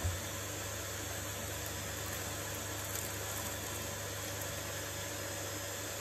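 Steady even hiss with faint steady hums under it, and a brief low thump just after the start.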